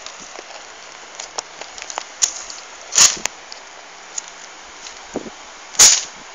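Paper crinkling and being struck with a plastic toy, with scattered small crackles and taps and two louder sharp crackles, about three seconds in and near the end, over a steady hiss.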